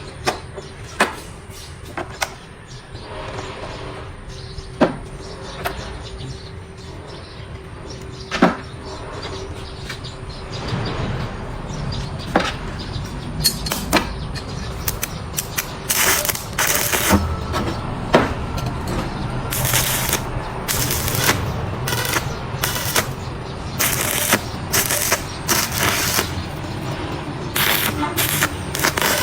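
Homemade welding machine's arc crackling and sputtering in irregular bursts of harsh hiss, each from a fraction of a second to about a second long, coming thick and fast in the second half. Sharp separate clicks and snaps come in the first half.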